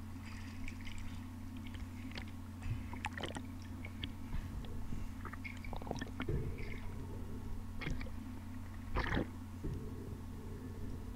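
Muffled underwater sound picked up through an action camera's housing while freediving: a steady low hum with scattered small clicks and crackles and a few soft knocks.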